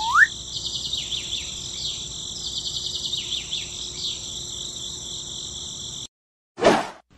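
Crickets chirping steadily, with many short high chirps over the top and a rising whistle at the very start. The chirping cuts off suddenly about six seconds in, followed by a short burst of noise.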